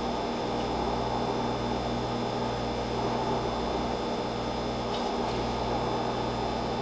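Steady low hum with a faint hiss, as of a kitchen appliance running.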